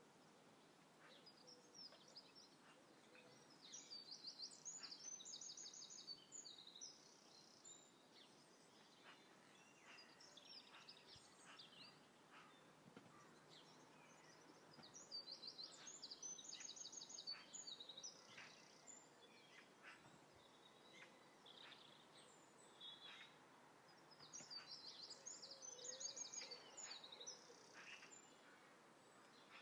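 Faint birdsong: a songbird's rapid trilled phrase three times, about ten seconds apart, with scattered short chirps in between.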